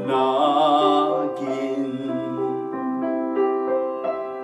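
A man's voice singing a hymn in Tagalog over keyboard accompaniment: a held note that wavers with vibrato in the first second or so, then the accompaniment moves on through a few stepped chords.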